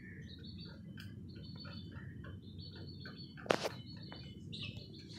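Caged chickens chirping in many short, high, repeated notes over a low steady rumble, with one sharp knock about three and a half seconds in.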